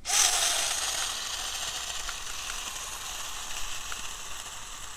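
Two toy RC cars' electric motors and gearboxes whirring with a hiss as they launch in a drag race, loudest at the start and fading over the first second or two as the cars pull away.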